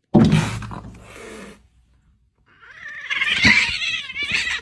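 Cats in a territorial standoff: a sudden loud cat cry that fades over a second or so, then, after a short pause, a longer wavering yowl.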